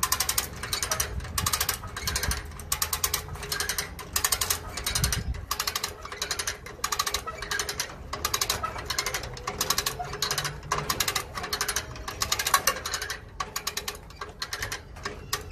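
Steel Core cable come-along hand winch being cranked under load: its ratchet pawl clicks in quick bursts with each stroke of the handle, about two bursts a second, as the cable draws a mower up onto a trailer. The clicking thins out near the end.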